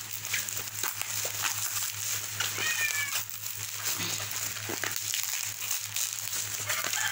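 Plastic parcel wrapping being torn open by hand in short rips and crinkles, tough to tear. A cat meows once about two and a half seconds in.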